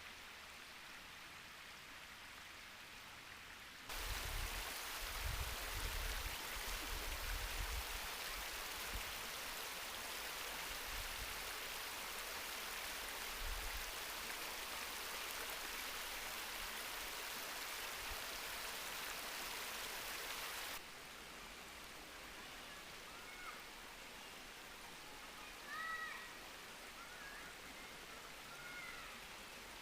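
A mountain stream rushing steadily, much louder from about 4 s in and cutting off abruptly about 21 s in, with low rumbles in its first few seconds. After the cut a quieter water ambience carries a few short bird chirps near the end.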